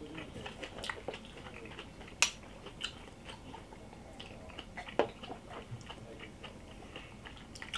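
Quiet eating and drinking sounds: chewing and sipping, with a few small sharp clicks scattered through, the sharpest about two seconds in.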